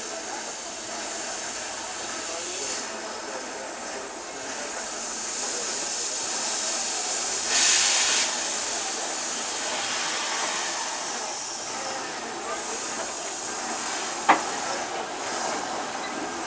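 LNER B12 steam locomotive standing with a steady hiss of steam, with a louder rush of steam for under a second about halfway through and a single sharp clank near the end.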